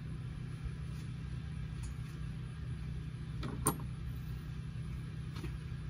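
Steady low mechanical hum, with one sharp click a little past halfway through.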